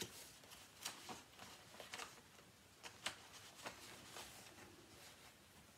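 Faint rustling with scattered light taps and clicks as cross-stitch projects and their packaging are handled and sorted.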